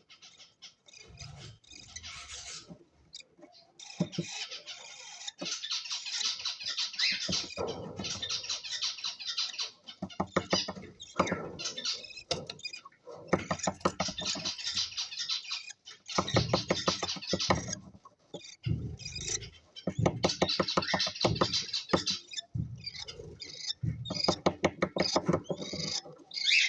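Cockatiels chattering and calling: dense runs of rapid, high-pitched chirps lasting a few seconds each, with short pauses between.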